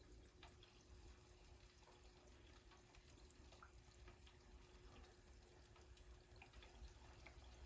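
Faint crackling and bubbling of hot oil as chicken pieces fry in an electric countertop deep fryer: many small irregular pops over a low hiss, with a faint steady hum.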